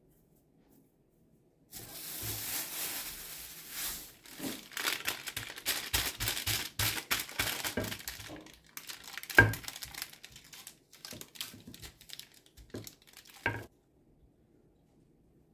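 Plastic bag and baking paper crinkling and rustling as dough is pressed and rolled out inside them, with many quick crackles and two sharper knocks, one about halfway through and one near the end.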